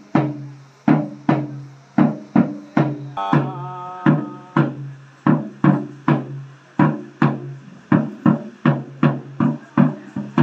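Music of sharp, briefly ringing drum strikes in an uneven rhythm, about two to three a second, over a low steady hum.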